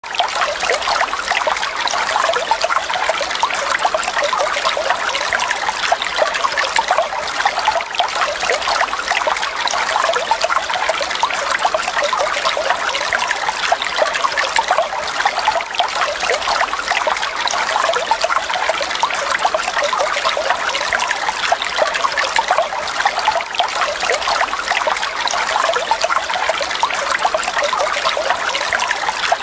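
Running water trickling steadily, a continuous even splashing and babbling like a small stream.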